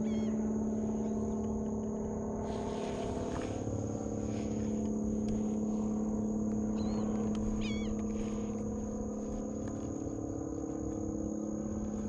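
Steady low hum of a bow-mounted electric trolling motor running, with a few short high chirps near the start and again about eight seconds in.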